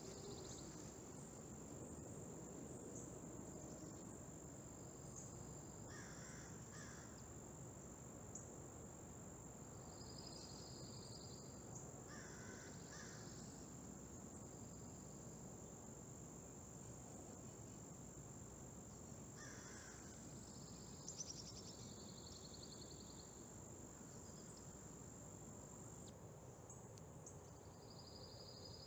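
Faint outdoor ambience: a steady high thin whine with scattered distant bird calls, a few short lower calls and a few higher chirping ones.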